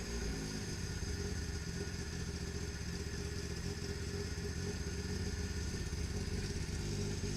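A VAZ-2108's four-cylinder petrol engine idling steadily, a low, even running sound.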